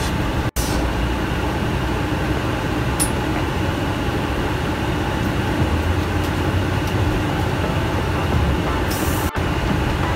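Steady rumble of a city bus's engine and running gear, heard from inside the passenger cabin.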